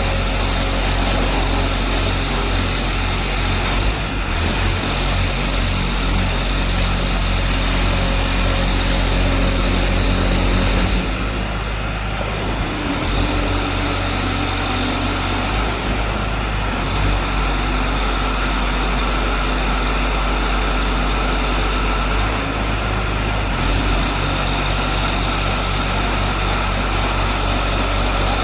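Engine of a portable scrap-car baler running steadily, its tone shifting about eleven seconds in and again near the end as the load changes.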